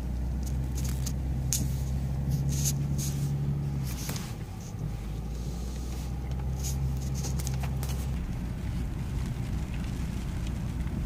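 Cabin noise of a BMW X6 driving slowly on a wet dirt track: a steady low engine drone that eases briefly about four seconds in, with scattered light clicks and ticks over it.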